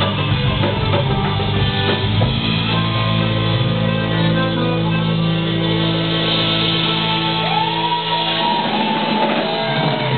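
Live folk-rock band with accordion, electric guitars, bass and drum kit playing, then holding one long sustained chord without drums for several seconds. Near the end a few rising-and-falling whoops sound over it.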